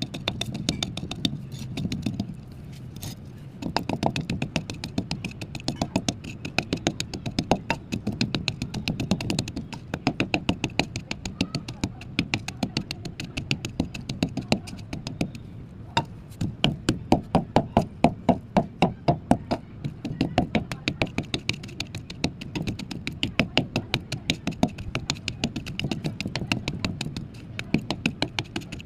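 Mud being crushed: a dense run of short, sharp crunching cracks, several a second, that never stops and is busiest a little past the middle.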